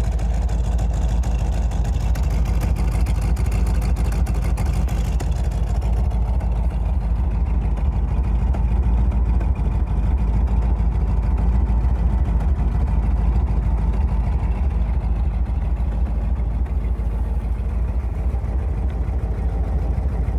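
1970 Plymouth Barracuda's 426 Hemi V8 running at a steady idle, with no revving.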